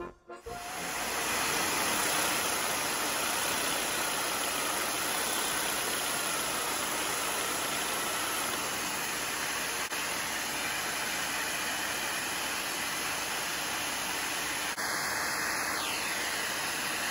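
A reciprocating saw (Sawzall) cuts through the aluminum AFM lifter-tray alignment tab in a Gen 4 5.3 LS block, with a shop vacuum running alongside to pull away the aluminum filings. Together they make a steady, even noise that starts about half a second in.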